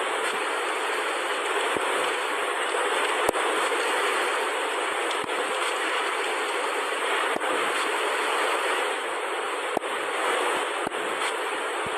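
Steady rushing hiss, like static or running water, with a few faint clicks scattered through it.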